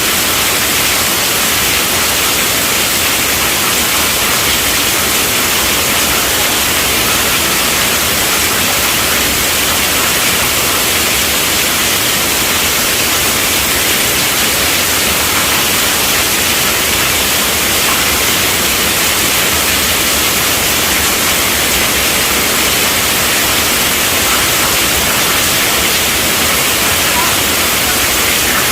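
Steady, heavy rainfall hiss, an even wash of rain noise that does not change.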